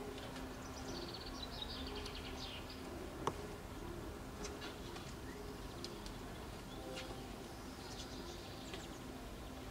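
Faint outdoor ambience: a small songbird twittering in quick trills about a second in and again near the end, over a faint steady low hum. A single light knock a little over three seconds in.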